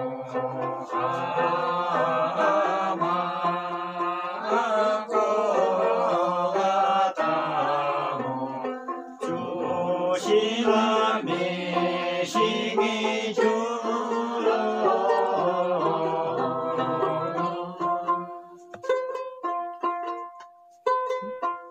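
Voices singing a Hyolmo chhyanglu folk song together, accompanied by a plucked string instrument. About eighteen seconds in the singing dies away and the plucked instrument carries on alone with a short run of repeated notes.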